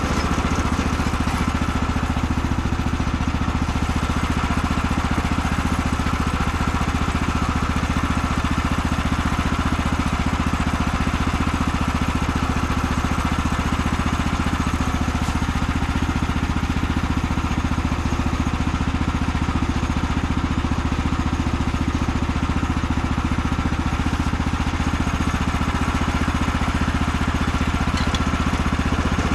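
The small gasoline engine of a Woodland Mills HM130 Max portable bandsaw mill running steadily at an even speed, with no change in pitch or load.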